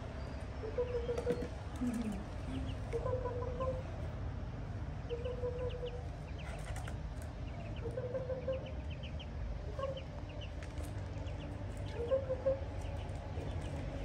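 Ducklings peeping in short, high chirps, with a lower call of about half a second repeating roughly every two seconds.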